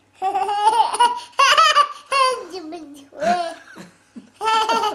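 A toddler babbling and laughing in a high voice, in several giggly bursts of pretend phone chatter without clear words.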